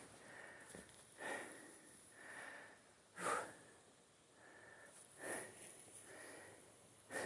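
A hiker breathing hard through the nose while walking, with a faint sniffing breath every second or two.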